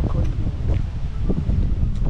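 Wind buffeting the microphone as a steady low rumble, with footsteps on asphalt about twice a second underneath.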